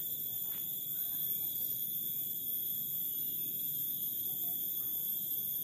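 A steady, high-pitched drone of forest insects, several shrill tones held without a break, over faint low rustling.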